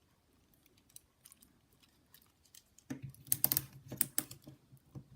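Light clicks and rattles of a hard toy figure and its parts being handled. There are scattered single clicks at first, then a quicker, louder run of clicks about three seconds in.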